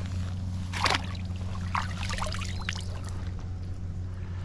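Water splashing and trickling, with a sharp splash about a second in, over a steady low hum.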